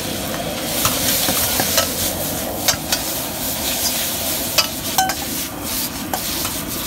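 Noodles sizzling in a hot wok while a steel ladle stirs and scrapes them, striking the wok with a series of sharp clacks.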